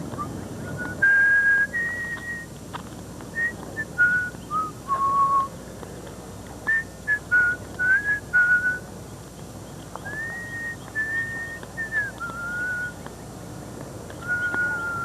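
A person whistling a slow tune: clear, held notes and short notes at changing pitches, in phrases with brief pauses between them.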